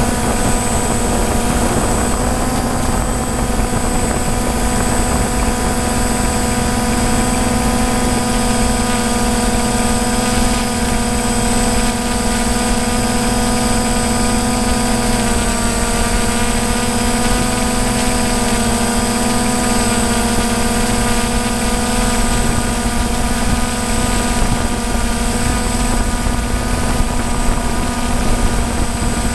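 DJI Phantom quadcopter's four electric motors and propellers humming steadily, as picked up by the GoPro Hero3 mounted on the drone, with a thin high whine above the hum. The pitch dips slightly about halfway through as the drone adjusts its hover.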